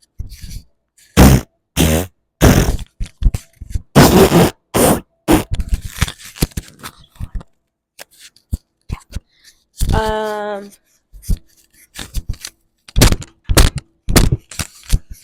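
A person making sound effects with their mouth, beatbox-style: a string of short, loud bursts, clicks and scraping noises at an uneven pace. About ten seconds in there is one held, buzzy pitched tone lasting under a second.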